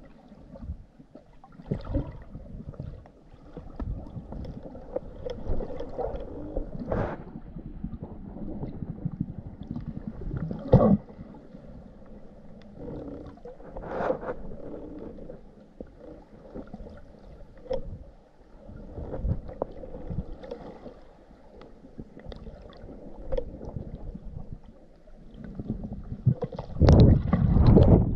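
Muffled underwater water noise picked up by a submerged camera, with irregular knocks and bumps and a louder stretch near the end.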